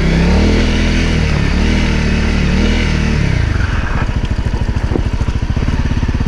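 A 2017 Honda CRF250L's single-cylinder four-stroke engine revs up and down under light throttle at trail-crawling speed for about three seconds. It then drops back to a low, lumpy near-idle, where the separate firing beats can be heard.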